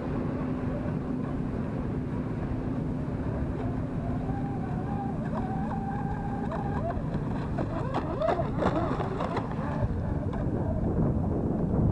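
Wind and choppy water at the microphone, with the distant whine of a Pro Boat Zelos twin RC catamaran's two electric motors running at speed. The whine holds steady for a few seconds, then wavers up and down about two-thirds of the way through as the boat runs over rough water.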